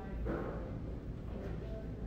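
Background ambience: a steady low hum with faint, indistinct voices, one brief patch of voice shortly after the start.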